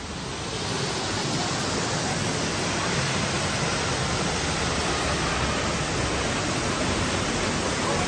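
Steady rushing roar of the Düden waterfall, growing louder in the first second as the rock passage opens onto the falls.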